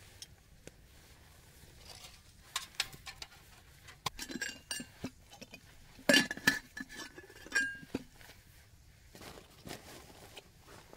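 Stainless steel canister and metal mug clinking and tapping as they are handled. A cluster of sharp clinks comes between about two and eight seconds in. The loudest, about six seconds in, leaves a brief metallic ring.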